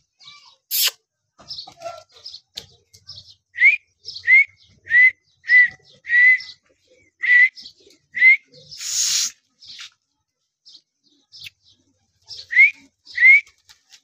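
Alexandrine parakeet giving a series of about ten short, high chirps, each rising at the end, with a brief harsh noisy burst about two-thirds of the way through.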